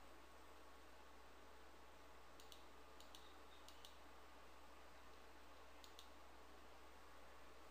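Computer mouse button clicked four times, each click a quick press-and-release pair, over a faint steady hum in near silence.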